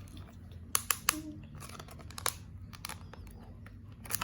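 Packaging being handled: scattered crinkling and a few sharp clicks, the loudest about a second in and again just after two seconds.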